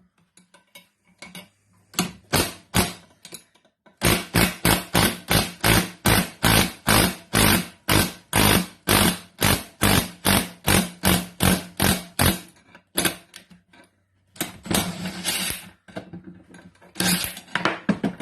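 Ratchet clicking in runs of regular clicks, about three or four a second, as the nut on a homemade threaded-rod bush puller is tightened.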